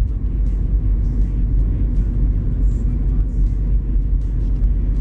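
Steady low rumble of a car driving at highway speed, heard from inside the cabin: engine and tyre noise.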